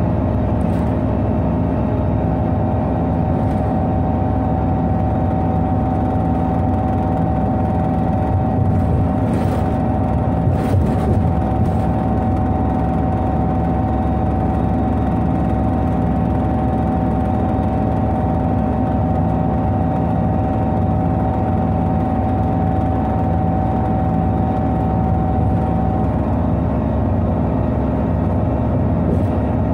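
Irisbus Citelis 18 articulated bus with an IVECO Cursor 8 straight-six engine and Voith automatic gearbox, running steadily. A steady high whine sits over the engine and stops near the end.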